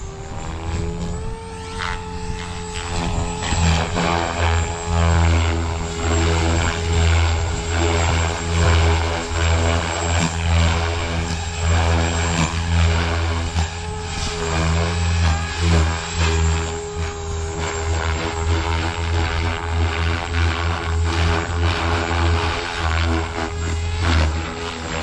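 Synergy 516 electric RC helicopter, driven by a Scorpion 4020 motor, in flight: a steady low rotor drone with a motor whine above it, swelling and fading every second or two.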